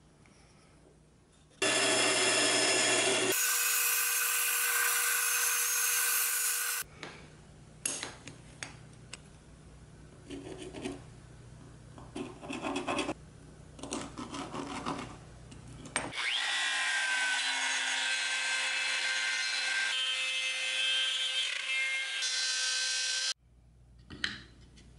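A power tool cutting or shaping wood in two loud runs: one from about two to seven seconds in, and a second with a steady whine from about sixteen to twenty-three seconds in. Both start and stop abruptly. Between the runs come quieter rubbing, scratching and light taps as wooden pieces are handled and marked with a pencil.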